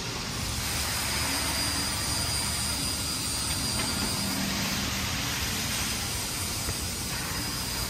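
Weitu 300U chain-stitch sewing head on a mattress tape edge machine running steadily while sewing tape along a mattress edge: a continuous mechanical whir with a faint high whine.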